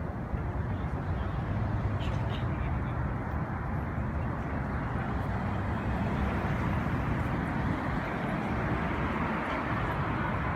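Steady city street noise of road traffic, a continuous rumble and hiss of passing cars.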